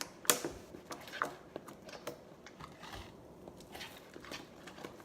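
Slime being mixed and worked in a container, making irregular small clicks and sticky taps, one sharper click just after the start.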